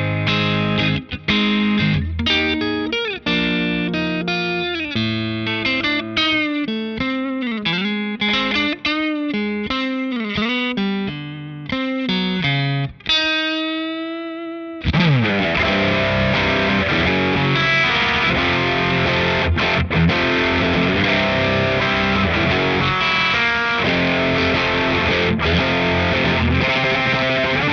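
Electric guitar played through a Strymon Compadre compressor and boost pedal, first as compressed single-note lines with string bends and a held note. About fifteen seconds in, the tone turns thick and distorted as the boost comes on in its dirty overdrive mode, and the playing continues as sustained distorted riffing.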